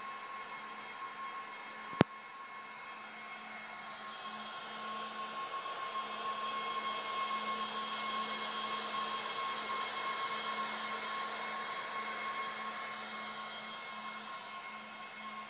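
Apple Xserve G5 server's cooling fans running with a steady whine, speeding up and getting louder from about four seconds in, then slowly easing off near the end. One sharp click about two seconds in.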